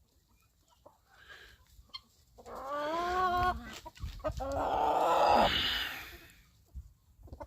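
Backyard chickens calling: a pitched, wavering call about two and a half seconds in, then a louder, harsher call lasting over a second.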